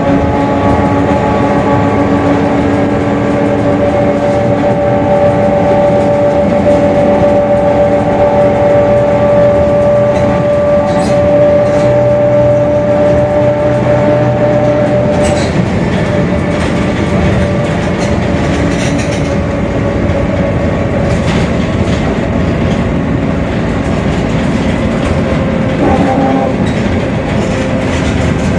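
Mercedes-Benz OF-1721 Bluetec 5 bus under way, its four-cylinder diesel running steadily with a high, steady whine from the differential that fades out about halfway through, and a few rattles after that. The whine is the noisy differential ("diferencial roncando").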